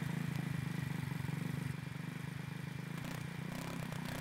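150cc GY6 single-cylinder four-stroke engine idling steadily in the buggy frame, with quick, even firing pulses; it drops slightly in level a little under two seconds in.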